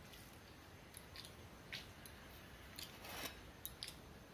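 Faint eating sounds: a few quiet, sharp mouth clicks and smacks from chewing rice and curry. A short scraping rush comes about three seconds in, as the steel mug is picked up.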